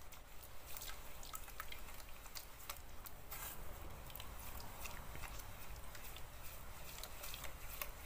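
Paintbrush stirring water-thinned paint in a metal paint kettle: faint wet squishing with many scattered light clicks as the brush works through the paint.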